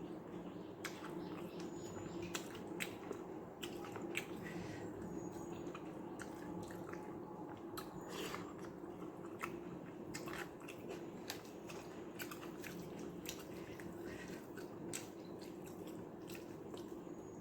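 A person chewing mouthfuls of white rice mixed with watery sambar, with irregular wet mouth clicks and smacks. A steady low hum runs underneath.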